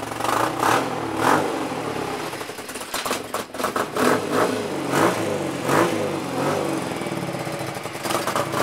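BMW cafe racer motorcycle engine running just after starting, revved in a series of short throttle blips that rise and fall between idle; it has freshly set ignition timing.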